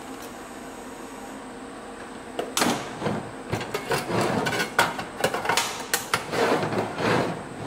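Locking welding clamps being unclamped and shifted on a thin stainless steel tank: about two and a half seconds in, a run of sharp, irregular metal clicks and clanks begins and goes on until near the end.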